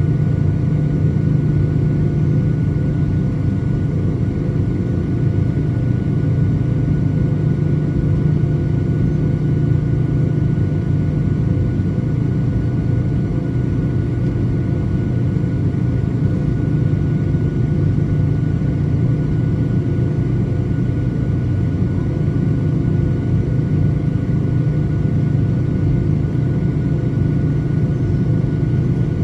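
Boeing 737-900ER's CFM56-7B jet engines running at a constant setting: a steady deep rumble with a fixed hum, neither rising nor falling.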